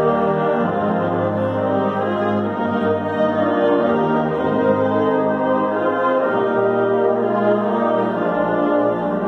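Student concert band playing slow, sustained chords, with the brass strongest. Held notes change every second or so.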